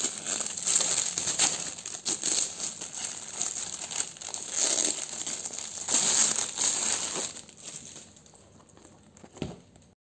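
Clear plastic packaging wrap crinkling in repeated bursts as hands handle a wrapped bag, fading out near the end.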